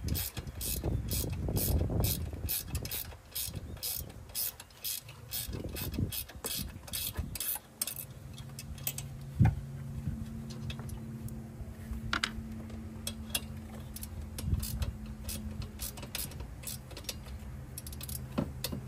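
Hands twisting and pushing a tight-fitting sleeve over its O-rings onto a BMW 335i throttle body: rubbing and handling noise with a sharp knock, over a steady high ticking of about three a second. A low steady hum comes in about eight seconds in.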